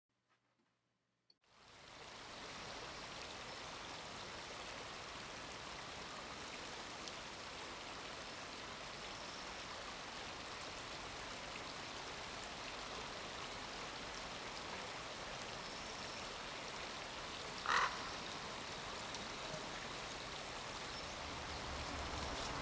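Nature ambience fading in about a second and a half in: a steady wash of noise with frogs calling. One short, louder call stands out near the end.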